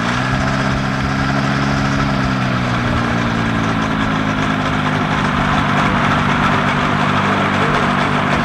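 Air Command gyrocopter's engine idling steadily, its pitch settling a little lower about two seconds in.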